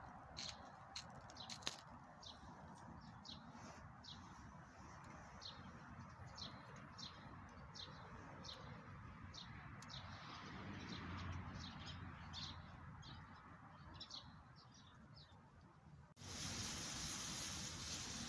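Small birds chirping, short high notes repeated two or three times a second over a soft background hiss. About sixteen seconds in, the sound cuts abruptly to a louder, steady hiss.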